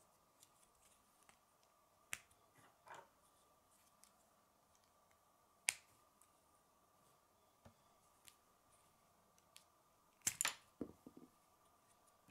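Plastic K'nex rods and connectors clicking as they are snapped together and handled. A few sharp clicks are spread out, with a quick run of several about ten seconds in, over a faint steady hum.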